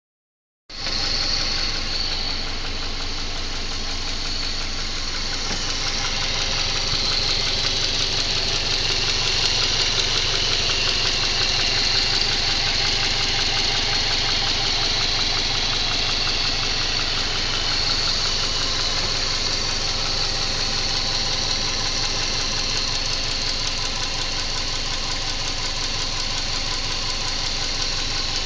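Subaru EJ204 2.0-litre flat-four engine idling steadily with a fast, regular knock, a knock that appeared after this used replacement engine was fitted.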